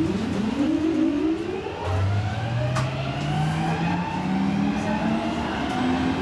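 Valmet–Strömberg M100 metro train's AC traction drive whining as the train accelerates away from a station. Several tones glide upward in pitch, and a fresh lower tone starts about two seconds in and climbs again.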